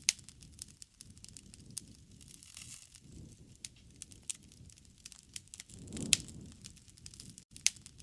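Wood fire crackling: irregular sharp pops and snaps of burning wood over a low rumble of flames, with a few louder pops near the start, about six seconds in, and near the end.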